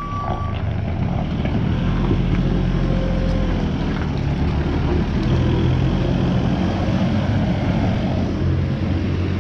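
JCB 403 Plus compact wheeled loader's diesel engine running under load as it drives and manoeuvres carrying a round bale, the revs shifting a little.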